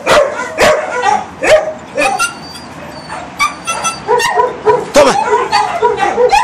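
A dog barking repeatedly and excitedly. The barks ease off into thin, high whines about two seconds in, then pick up again as a quick run of yips.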